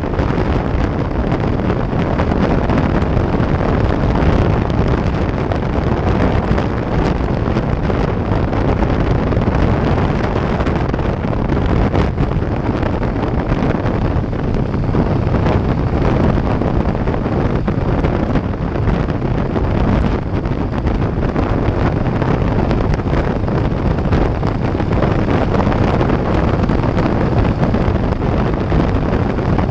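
Heavy, steady wind noise buffeting a GoPro's microphone on a Harley-Davidson motorcycle riding down the highway.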